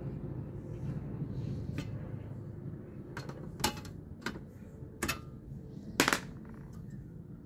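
Sharp clacks and taps from a louvered vent grille and acrylic panels being handled and laid against each other: about half a dozen knocks, the loudest a quick double knock near the end.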